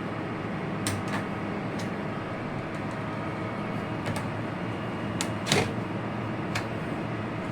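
A few sharp clicks and knocks of steel wire rope strands being handled and separated for a splice, the loudest about two thirds of the way through, over a steady background hum.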